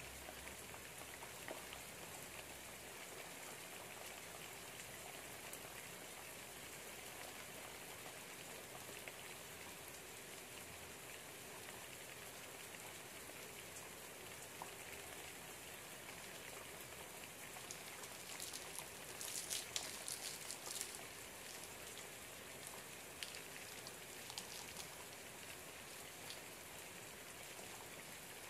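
Steady rain pattering outside a window, a soft even hiss. About two-thirds of the way through comes a short spell of crisp rustling and crinkling, with a few more faint crackles after it.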